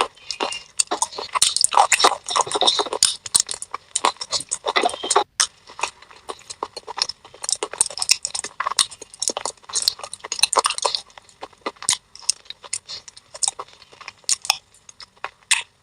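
Thin baked-clay (claypot) pieces coated in a wet clay paste being bitten and chewed close to the microphone: many sharp, irregular crunches and gritty cracks throughout.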